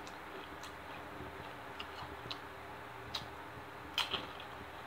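Spicy Doritos tortilla chip being bitten and crunched in the mouth: small scattered clicks, a sharper crackle about three seconds in and the loudest crunching bite about four seconds in.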